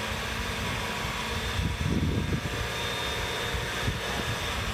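Range Rover Velar's engine running under load as the SUV crawls across an alternating ramp, with a louder low rumble about two seconds in.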